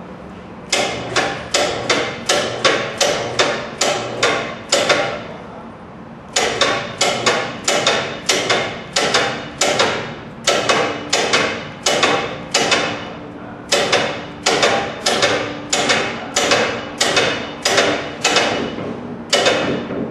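Hammer striking metal on a decanter centrifuge, in steady rapid blows about two to three a second, each ringing briefly. The blows come in four runs broken by short pauses.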